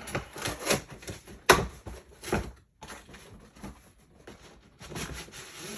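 Cardboard packaging being handled and opened: several sharp knocks and taps, the loudest about a second and a half in, with scattered rustling and a longer rustle near the end.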